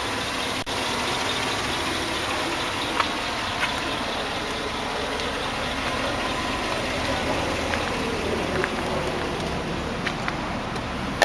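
Steady rushing outdoor background noise with a few faint light clicks scattered through it.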